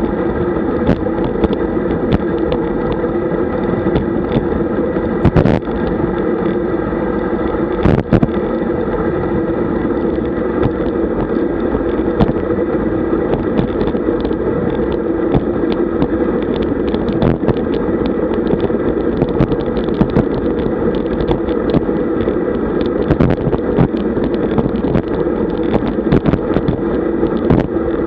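Steady rush of wind and road noise on a bike-mounted camera while riding at about 43 km/h, with frequent small knocks and clicks as the mount jolts over the road surface, two of them sharper, at about five and eight seconds.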